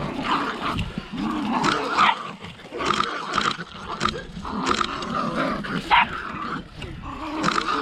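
Working terriers barking and growling in many short, irregular bursts during a rat hunt.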